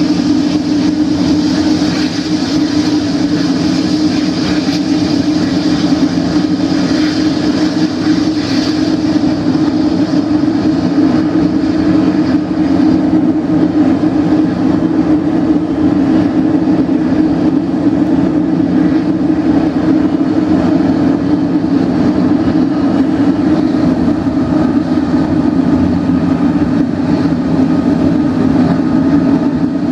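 Boeing 777-300ER's GE90-115B turbofan engines running steadily: a loud, even low drone with steady tones above it and a higher hiss that eases about twelve seconds in.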